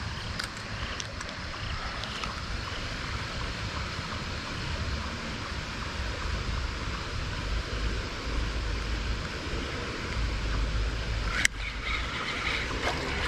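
Creek water running steadily, with low wind rumble on the microphone. A single sharp click about eleven seconds in stands out above it.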